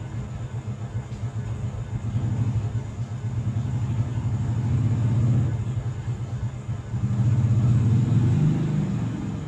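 Low engine rumble of a passing motor vehicle, swelling twice and loudest near the end.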